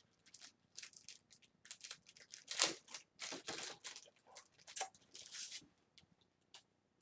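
Packaging being handled by hand: a run of short tearing and crinkling rustles, the loudest about two and a half seconds in, dying away near the end.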